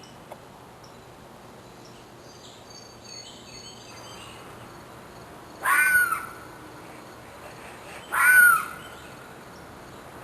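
Two loud animal calls about two and a half seconds apart, each about half a second long and rising then falling in pitch, over a faint steady woodland background with a few faint bird chirps before them.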